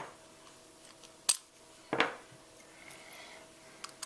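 Key being turned and worked in the interchangeable core of a mortise inverted deadbolt: a few sharp metallic clicks and clacks, the loudest about two seconds in.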